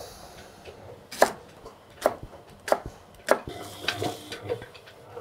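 Knife chopping leek on a cutting board: a row of sharp chops, about one every half second.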